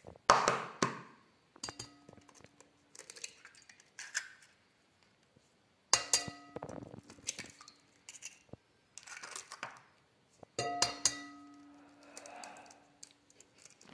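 Eggs tapped on the rim of a glass mixing bowl and cracked open, three times about four seconds apart. Each tap makes the glass bowl ring briefly, with the rustle of shell being pulled apart between taps.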